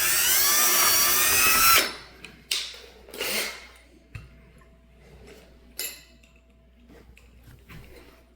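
Electric drill running for about two seconds to enlarge a screw hole, its whine wavering in pitch, then stopping. A few short sharp bursts and clicks follow.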